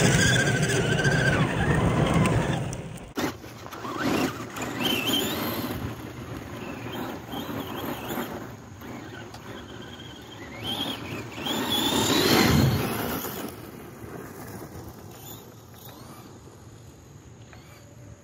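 Electric RC monster truck, a Traxxas Bigfoot at first, with its motor whining as its tires spin and spray gravel, loudest in the first three seconds. After that come several rising whines of the motor revving as the truck drives across gravel, fading away near the end.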